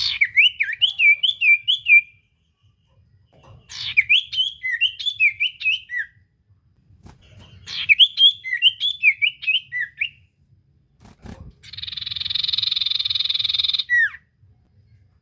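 Common iora (cipoh) singing as a lure call: three runs of quick, chirpy whistled notes, then near the end a harsh buzzing rasp of about two seconds closing with a short falling note.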